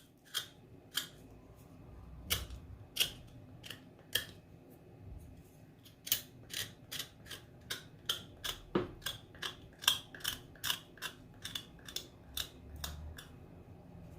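Bitter kola nut being peeled: a string of short, crisp scraping clicks as the skin comes off, sparse at first, then coming about two or three a second from about halfway through.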